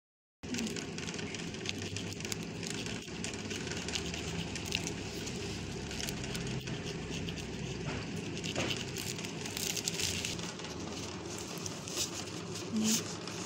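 A serrated tracing wheel rolling over a paper pattern laid on fabric, making a continuous crackling rasp with scattered sharper clicks over a low steady hum.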